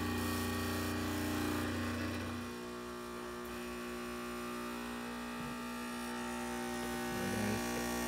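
ECM Giotto espresso machine's pump running while an espresso shot is pulled, a steady hum. Its deepest part drops away about two and a half seconds in, and the hum carries on a little quieter.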